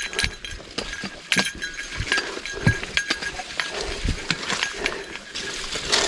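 Irregular clicks and knocks of hiking footsteps and gear on a stony trail, with a faint high metallic ringing that comes and goes.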